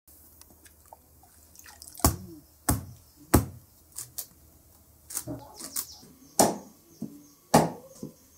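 Sharp, hard knocks in an uneven series, about five loud strikes with lighter taps between: a machete chopping a wooden stick on a wooden block.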